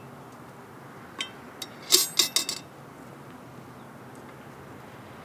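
Metal charcoal tongs clinking as charcoal briquettes are set on a cast-iron Dutch oven lid: two light clinks, then a quick cluster of louder clinks about two seconds in.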